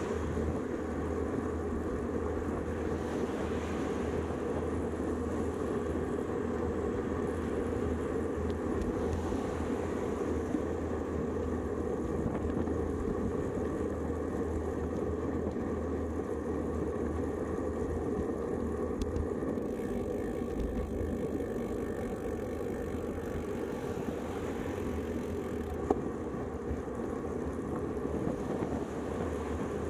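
Steady rush of wind and road noise while riding a road bike, picked up by the bike-mounted camera's microphone. Two short clicks, one about ten seconds in and one near the end.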